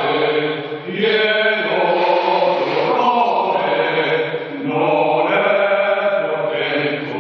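Background music of chanting voices holding long notes, in phrases that break off about every two seconds.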